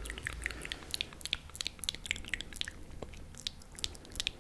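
Close-miked chewing of a mouthful of pizza: many small wet mouth clicks and smacks, irregular, several a second.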